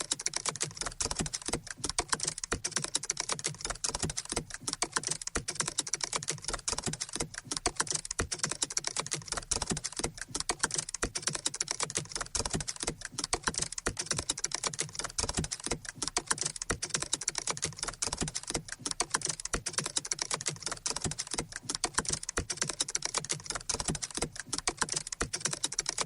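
Rapid, continuous key clicks from a looped typing sound effect, played back as the sound for a typewriter-style text animation.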